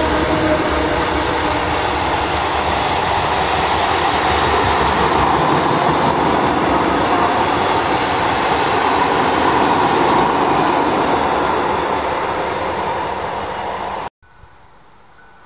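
Freight train of tank wagons rolling past: loud, steady wheel-and-rail rumble that eases off as the last wagons go by, then cuts off abruptly near the end.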